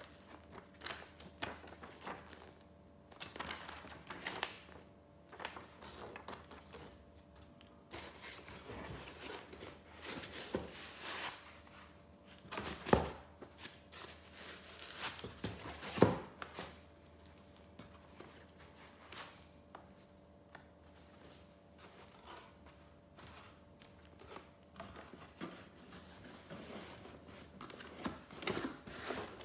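Laptop packaging being handled: a paper sheet, tissue wrap, foam blocks and a cardboard box rustling and scraping in irregular bursts, with two sharp knocks about halfway through.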